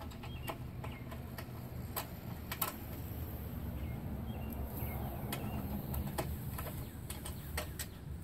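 Scattered light metallic clicks and clinks of a small roller drive chain and its parts being handled inside a pedal tractor's steel frame, over a steady low background rumble.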